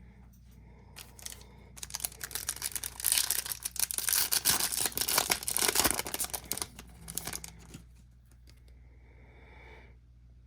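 Trading-card pack wrapper being torn open and crinkled, a dense crackling with sharp clicks that starts about two seconds in and dies down about two seconds before the end.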